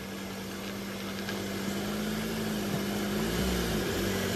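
Mahindra Thar SUV engine running at low speed while the vehicle is manoeuvred, a steady hum that grows a little louder, with a brief dip and waver in pitch about three seconds in.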